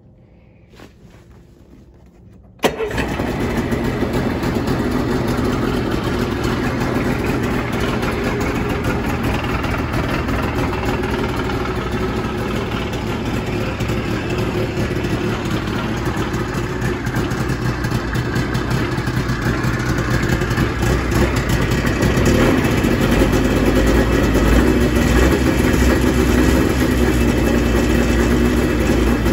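Yamaha Ovation 340 snowmobile's two-stroke engine starting up about three seconds in, then running steadily, a little louder toward the end.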